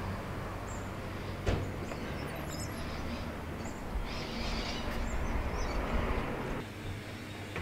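Street noise: a steady low engine hum under traffic hiss, swelling between about four and six and a half seconds, with one sharp knock about a second and a half in.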